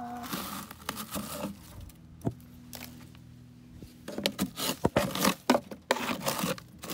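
Wood shavings rustling and scraping as they are scooped and spread with a plastic scoop in a nesting box. The rustles come in bursts, ease off a couple of seconds in, then pick up again as a busy run of rustles and clicks.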